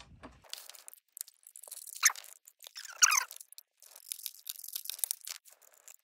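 Small plastic clicks and scrapes from handling the cordless vacuum's plastic floor-head housing and its screws during reassembly, with two louder scraping sounds about two and three seconds in.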